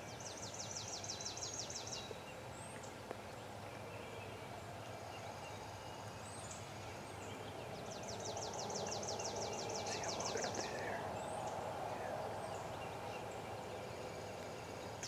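Spring woodland birdsong: a songbird's fast, dry trill of evenly spaced high notes, sung twice, with scattered short chirps from other birds over quiet outdoor background.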